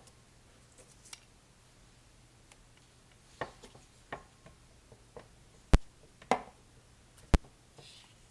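Crafting handling noises as paper circles are glued and pressed onto a paper party hat: soft paper rustles and scattered clicks, with two sharp clicks in the second half about a second and a half apart.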